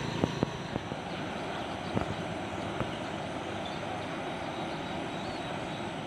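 Steady hiss of falling rain, with scattered irregular ticks of drops striking close by.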